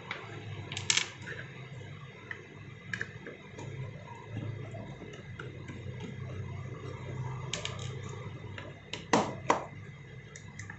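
Small metal clicks and clinks from a screwdriver, loose screws and an aluminium power-supply chassis being handled on a workbench, with two sharp clicks close together about nine seconds in. A steady low hum runs underneath.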